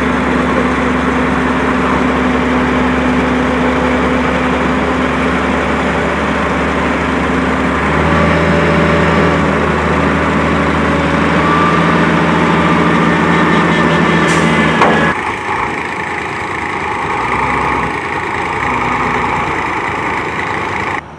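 Heavy engine running steadily, its note shifting about eight seconds in. Around fifteen seconds in, a sharp click and the sound falls away abruptly, leaving a quieter engine hum.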